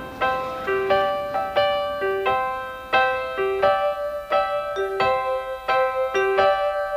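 Gentle background music: a keyboard melody of evenly spaced notes, each struck and left to ring and fade.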